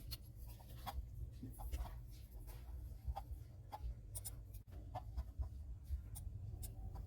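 Scattered light clicks and scratching, irregular, over a steady low hum.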